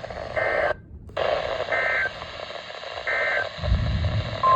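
Emergency Alert System end-of-message signal: three short, identical bursts of warbling digital data tones about 1.4 s apart over radio-style hiss, marking the end of the alert. A low thump follows the third burst, and a steady single tone starts near the end.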